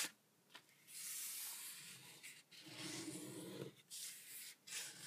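Square sheet of paper being folded along its diagonal and creased: a dry rubbing hiss as fingers slide along the fold, starting about a second in and lasting about three seconds, with a shorter rustle near the end.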